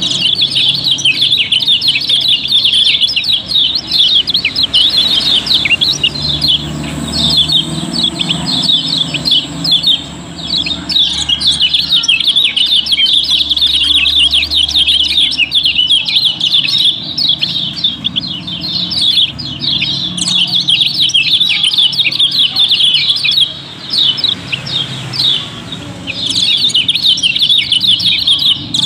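Several caged yellow white-eyes (kecial kuning) chirping in a fast, dense, overlapping chorus, with brief lulls about a third of the way in and again near the end.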